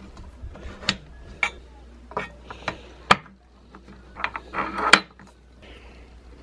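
Small plastic and metal parts of a Kreg router table fence lock handle clicking and tapping against the aluminium fence extrusion as they are fitted by hand: irregular light clicks, the sharpest about three seconds in and again near five seconds, with a short rustle of handling just before the second.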